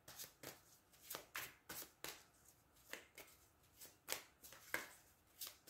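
A deck of cards being shuffled by hand, overhand from one hand to the other: a faint, irregular run of short card slaps and swishes, about fifteen over a few seconds.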